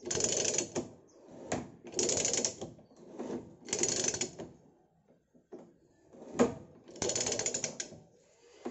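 Hand-operated CP ratchet die stock cutting a thread on a 1/2-inch steel pipe: the handle is swung back and forth, and each stroke brings a run of rapid ratchet clicking about a second long. There are four such runs, with a break about halfway.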